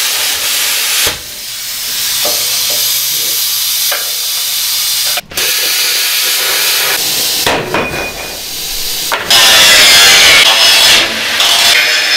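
A steady, loud rushing hiss of air while the dust is cleaned out of a steel shower sump pan. It drops out briefly about five seconds in, and grows louder and rougher for a couple of seconds around nine seconds in.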